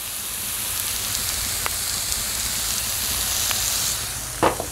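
Thin shaved steak and Italian sausages sizzling on a hot flat-top griddle: a steady frying hiss with a couple of faint pops.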